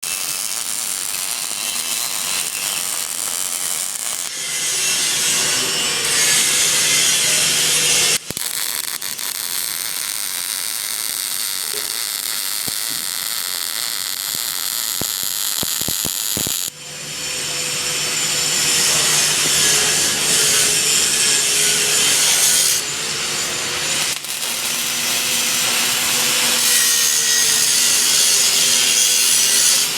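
Welding arc crackling and hissing steadily in long runs, the arc breaking off abruptly about 8 seconds in and again about 17 seconds in before striking up again.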